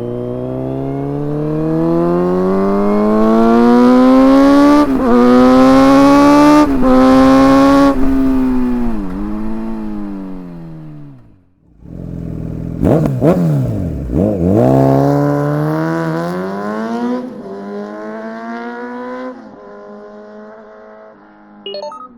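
Kawasaki Z900 inline-four engine through an open Akrapovic full exhaust with no dB killers, loud, pulling hard up through the gears with short dips at each upshift. About eight seconds in it rolls off and the revs fall away, then it picks up sharply again and climbs through more upshifts before settling to quieter, lower running near the end.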